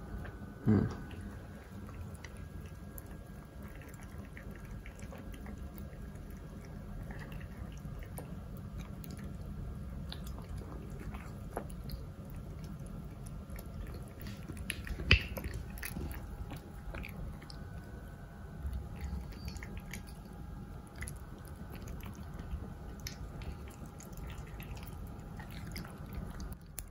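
Mameshiba puppy eating kibble softened in hot water from a plastic bowl: soft chewing with many small clicks. Two sharp knocks stand out, about a second in and about halfway through.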